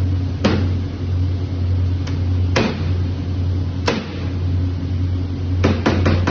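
Knife and cleaver strikes on a cutting board while chopping raw chicken: a few single chops a second or more apart, then rapid chopping at about six strokes a second near the end. A steady low machine hum lies under it all.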